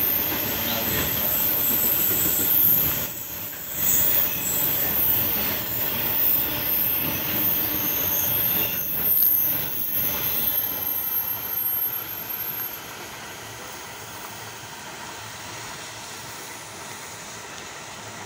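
Empty cement train's bulk cement wagons rolling past on the adjacent track, a loud uneven rumble and clatter of wheels heard from a moving train's window. About 12 seconds in, the noise drops to a quieter steady rumble.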